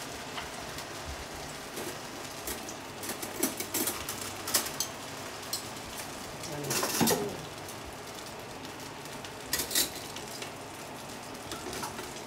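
Food frying in a pan on the stove, a steady sizzle, with a few clinks and scrapes of utensils against a bowl and pan, the loudest about seven seconds in.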